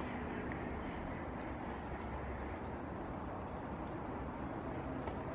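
Steady low outdoor background rumble with a few faint, short high ticks.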